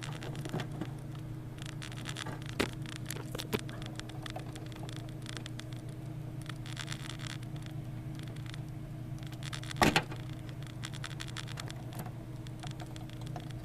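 Hands working inside a desktop computer case, unplugging cable connectors: scattered small clicks, scrapes and rustles, with one louder knock about ten seconds in, over a steady low hum.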